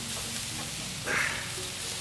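Marinade dripping from basted char siu pork onto hot oak lump charcoal in a Weber Smokey Mountain, sizzling in a steady hiss with a short louder burst about a second in. Background music plays underneath.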